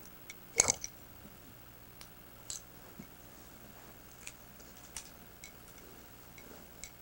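Handling noise from toy figures being moved by hand: a short knock with a rustle about half a second in, then scattered faint clicks.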